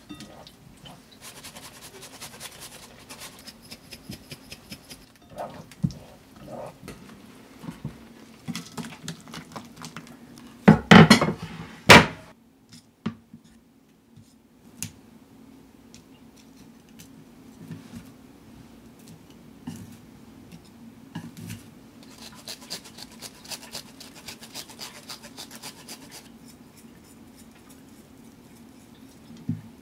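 Kitchen plating sounds: a metal chopstick clicking and scraping against an enamel bowl as gnocchi are set into the sauce, with a loud double clatter of dishware near the middle. Later comes a run of quick light rattling as grated cheese is shaken out of a shaker.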